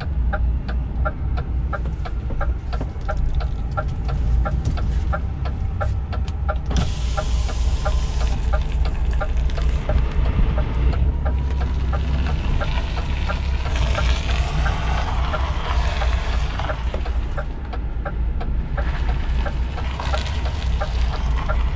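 DAF truck's diesel engine running at low speed, heard inside the cab, with a fast regular ticking through the first half and a few stretches of hiss.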